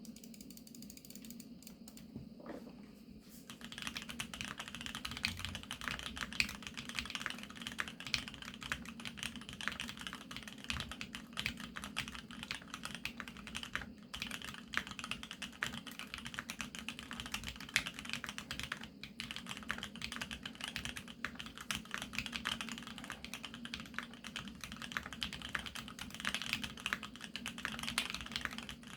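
Fast, continuous typing on a GEONWORKS F1-8X full-aluminium, gasket-mount mechanical keyboard with Krytox-lubed Polaris Gray switches, Equalz stabilizers and mStone keycaps, picked up by a phone microphone. The keystrokes start in earnest a few seconds in and then run on densely and evenly.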